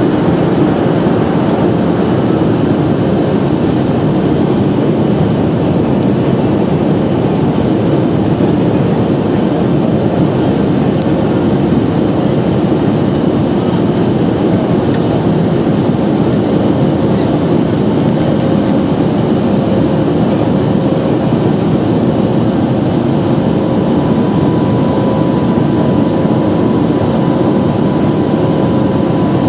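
Boeing 737-300 jet engines running with a loud, steady roar, and a steady higher whine joining in near the end.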